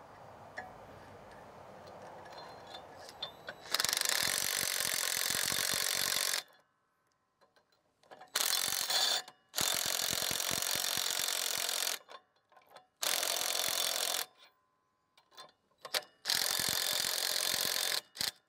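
DeWalt cordless impact driver with a deep-well socket hammering a hex nut down a long U-bolt's threads. It runs in five bursts of one to three seconds each, starting about four seconds in, with short stops between them.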